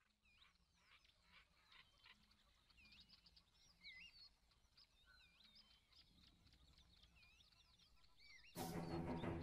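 Faint chirping of many small birds, quick rising and falling whistles overlapping one another. Loud music starts suddenly near the end.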